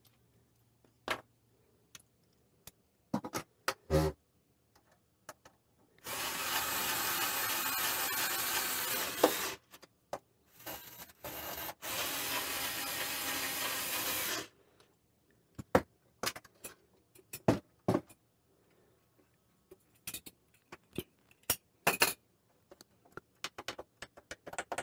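Electric screwdriver running in two spells of about three to four seconds each, driving screws into a slow cooker's steel base, with scattered light clicks and knocks from the metal housing being handled.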